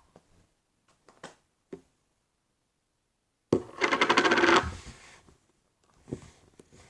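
Slime being squished and played with by hand: a couple of faint clicks, then about three and a half seconds in, a second-long run of rapid crackling pops.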